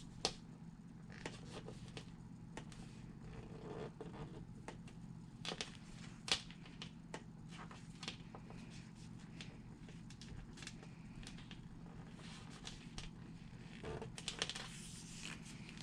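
Faint handling: strap pieces being folded and pressed down onto double-sided tape, with scattered soft clicks, taps and rustles and a busier patch near the end. A steady low hum sits underneath.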